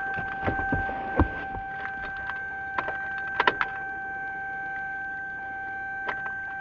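Ignition key of a Chevy being switched on and off repeatedly without starting the engine, to prime the fuel pump: a string of sharp, irregular clicks, mostly in the first few seconds and once more near the end. A steady high-pitched tone runs underneath.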